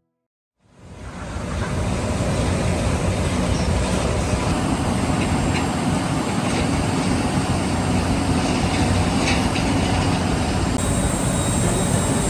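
Steady, loud rumble of airport apron noise from vehicle and aircraft engines, fading in just under a second in, with a higher hiss joining near the end.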